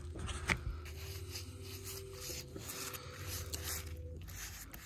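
Gloved hand rubbing and scraping wet mud off a metal plate in a car's engine bay, in short irregular strokes, to uncover its stamped numbers. A faint steady low hum runs underneath.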